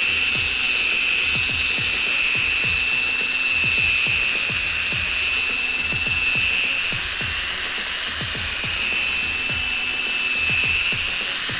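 Power drill spinning an 800-grit sanding disc against a plastic headlight lens: a steady high motor whine that wavers slightly in pitch as the load changes.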